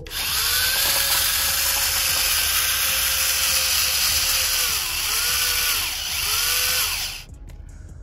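Homemade remote-control New Holland 3630 toy tractor's electric drive motor and gearbox whining loudly as it drags a weighted pulling sled. The pitch sags twice near the end as the load on the tractor builds, and the whine cuts off suddenly about seven seconds in.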